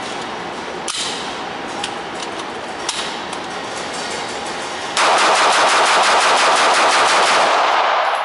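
Beretta PX4 Storm semi-automatic pistol fired rapidly: a fast, unbroken string of shots starts about five seconds in and runs for about three seconds, echoing off the walls of an indoor range lane.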